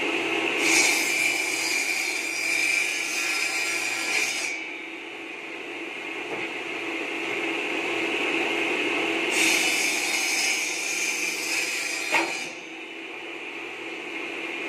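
Mini bamboo-cutting machine, a 12-inch circular saw blade on a low-speed 1/2 hp electric motor, running with a steady whine and cutting through bamboo twice. Each cut lasts about three to four seconds, and a sharp click comes as the second cut ends.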